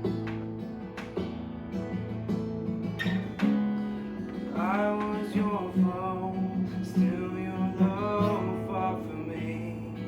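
Worship-band music led by strummed acoustic guitar over sustained chords, with a voice singing a few held notes from about halfway through.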